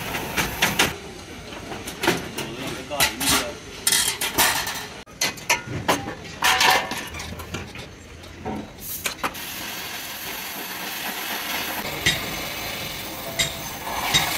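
Gas cutting torch hissing steadily as it cuts through a truck's steel bumper frame, with many sharp metal clanks and knocks over the first nine seconds and a few more near the end.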